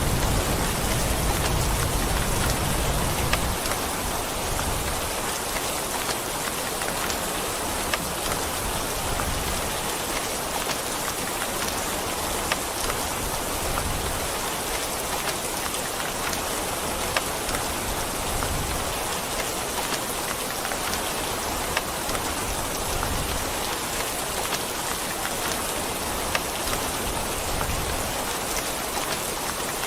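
Steady heavy rain with scattered sharp drop hits. A low rumble underneath dies away about three seconds in.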